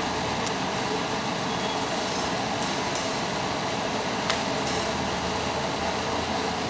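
Steady rushing of a large gas burner flame, with a few light clicks and one sharper click about four seconds in.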